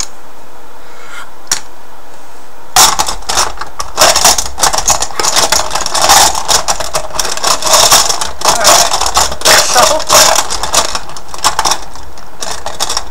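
Poker chips rattling and clacking against each other as a hand stirs them in a plastic cup. The rattle starts about three seconds in and stops near the end, after a few single clicks.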